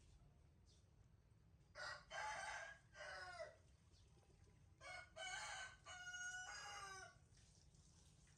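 A rooster crowing twice, each crow about two seconds long and broken into several rising and falling parts.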